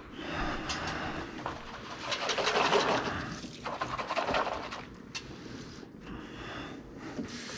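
A kitchen container or utensil being washed by hand in soapy water: rubbing and scraping in several bursts of a second or so each.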